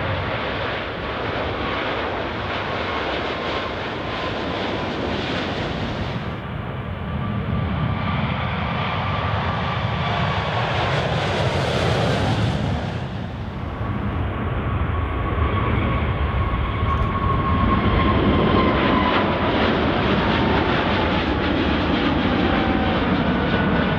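Boeing 777-300ER's GE90-115B turbofan engines at takeoff thrust: a loud, steady jet rumble with a whine that slowly falls in pitch as the aircraft passes and climbs away. The sound changes abruptly twice, about six and fourteen seconds in.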